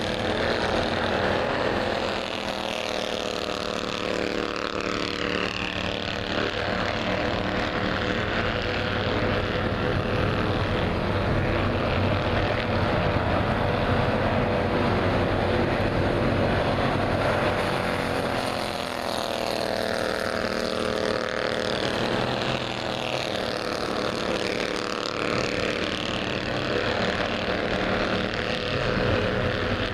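Race car engines running on a speedway, a steady drone whose pitch rises and falls slightly as the cars lap.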